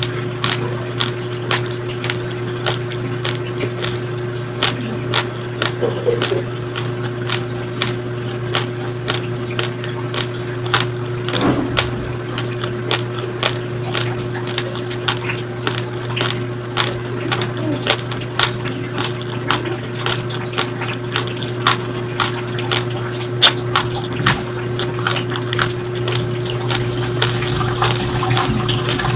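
Raw white rice grains crunched between the teeth, chewed with the mouth closed close to the microphone: a dense, continuous run of sharp little crackles, several a second.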